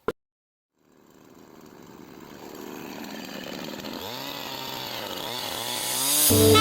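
Chainsaw engine fading in and growing louder, its pitch rising and falling as it is revved. Music starts near the end.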